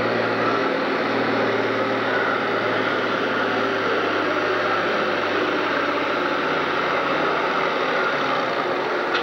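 Farm-stock pulling tractor's diesel engine running flat out under heavy load as it drags a weight-transfer sled, a loud steady noise. The low engine note fades out about eight seconds in as the pull ends.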